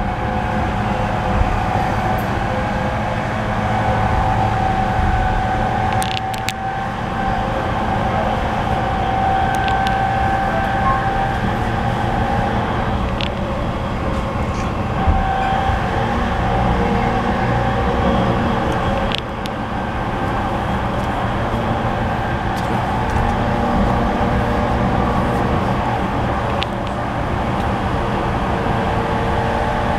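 Cabin running sound of a Tokaido Line E231 series suburban electric train, equipment-renewed with a Hitachi IGBT-VVVF inverter, travelling at speed. A steady rumble of wheels on rail carries a few steady tones, with a handful of sharp clicks scattered through.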